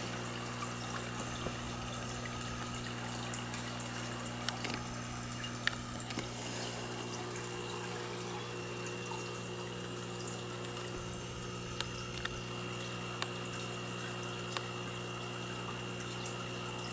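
Aquarium aeration running: air bubbling up through the tank water over a steady low pump hum, with a few faint clicks.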